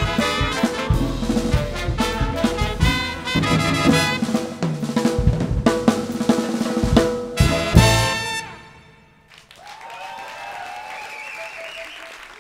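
A jazz ninetet plays its closing bars: brass (trumpet, trombone, saxophones) over drum kit and congas, ending on a sharp final ensemble hit about eight seconds in. After a second's hush, audience applause with cheers starts.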